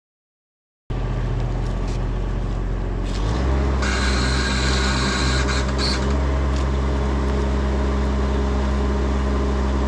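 CAT 279 skid steer's diesel engine running, starting abruptly about a second in. Its pitch steps up about a third of the way through as it is throttled up, with a brighter hiss over it for a couple of seconds in the middle.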